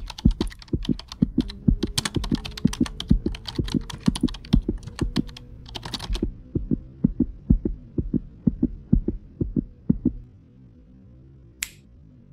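Keyboard-typing sound effect: rapid, irregular clicks of keystrokes accompanying text being typed out on screen, thinning to sparser clicks over a low hum later on. There is a short rushing noise about six seconds in and another near the end.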